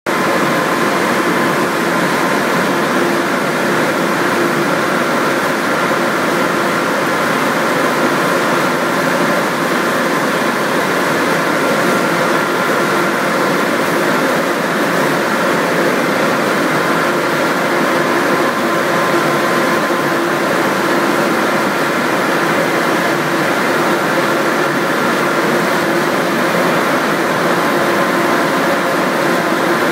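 Steady, loud drone of machinery on an industrial french-fry processing line with a continuous fryer and mesh conveyor, with several constant humming tones over even noise.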